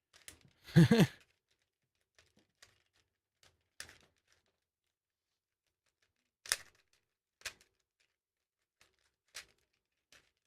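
Plastic clicks of a 1981 Rubik's Cube being twisted, sparse sharp clicks a second or two apart. A short vocal sound about a second in is the loudest thing.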